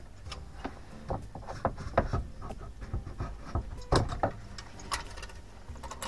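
Irregular light clicks and knocks of a tinplate toy lorry's loose metal body and cab parts being handled and turned over, the strongest knocks about two and four seconds in.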